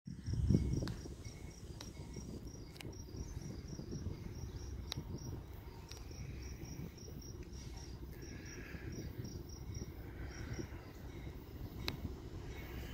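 Quiet outdoor ambience: a low rumble of wind and distant traffic, with a soft thump about half a second in. Over it, an insect chirps faintly about three times a second, pausing briefly near the end.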